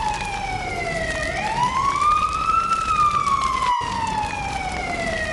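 Fire truck siren wailing, its pitch slowly falling and rising in long sweeps of a few seconds. It cuts out for an instant a little before four seconds in.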